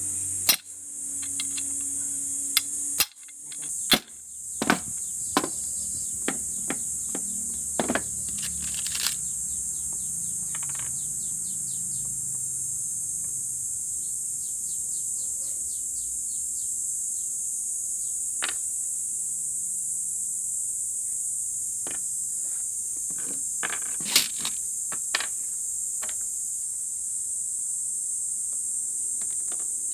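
A steady, high-pitched insect chorus runs throughout. Over it, a hammer strikes a steel socket used as a drift on the chainsaw's aluminium crankcase half: sharp metallic taps in the first ten seconds. A few more knocks and clicks of parts being handled come about 24 seconds in.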